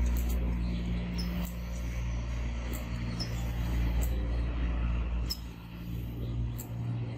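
Outdoor background noise: a steady low hum with a few faint, short high chirps now and then.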